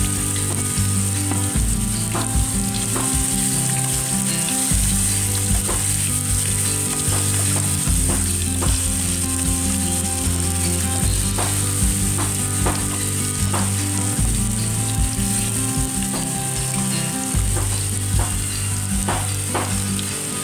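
Garlic, lemongrass and ginger sizzling steadily in hot oil in a non-stick wok, stirred with a wooden spatula that now and then scrapes and taps against the pan.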